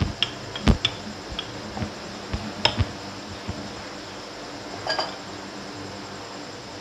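Rolling pin rolling paratha dough on a wooden pastry board, with irregular knocks and clacks as the pin bumps the board, the loudest about a second in and a last few around five seconds in, over a steady low hum.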